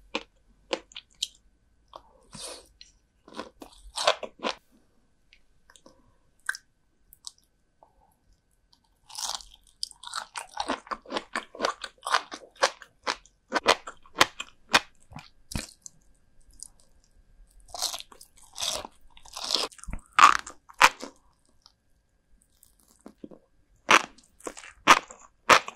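Close-miked crunching and chewing of fish roe, salted herring roe and flying fish roe, in bursts of sharp crisp bites. The chewing comes thickest about ten seconds in and again around eighteen to twenty-one seconds, with a few sharp bites near the end.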